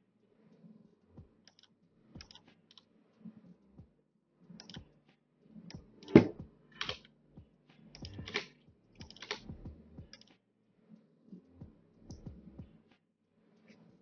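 Computer keyboard keystrokes and mouse clicks: scattered taps, with a quicker run of louder keystrokes in the middle.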